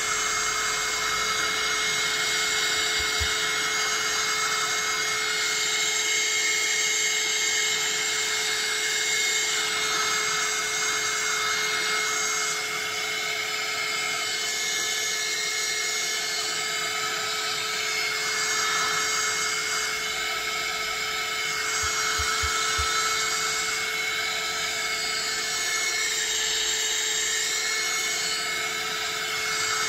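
Small handheld hot-air gun running steadily, its fan motor giving a continuous whine as it blows hot air onto a tablet screen to soften the adhesive.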